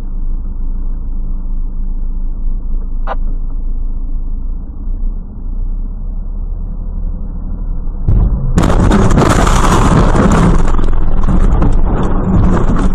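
Steady low engine and road rumble of a moving car, heard from inside the cabin, with one short click about three seconds in. About eight and a half seconds in, a much louder hissing noise starts suddenly and keeps on.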